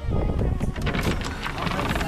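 Wind rumbling on the microphone, with light metallic clinks from the boat's anchor chain being handled at the bow.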